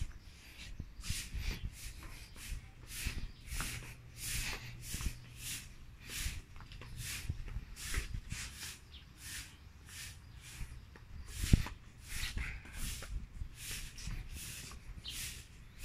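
Footsteps of a person walking across wooden floorboards and decking, about two scuffing steps a second, with one louder knock about two thirds of the way through.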